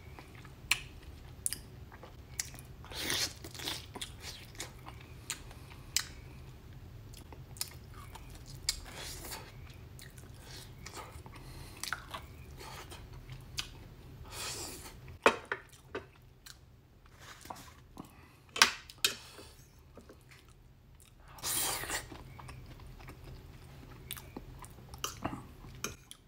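Close-up chewing and wet mouth sounds of a man eating barbecue ribs: irregular smacks and clicks, with a few louder ones in the second half.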